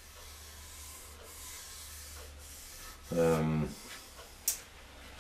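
A palm rubbing along the freshly hand-planed edge of a board, a soft, steady brushing. About three seconds in there is a brief low hum, and near the end one sharp click.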